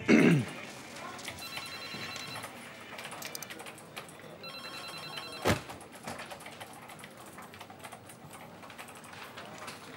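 A falling whoosh at the very start, then an office telephone's electronic ring trills twice, each about a second long and some three seconds apart, over quiet office room tone. A single sharp click follows just after the second ring.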